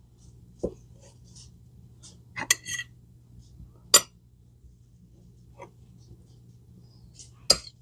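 Serving utensil and dishes clinking as roasted radishes are put onto plates: a few scattered light clinks, the sharpest about four seconds in and near the end, over a faint steady low hum.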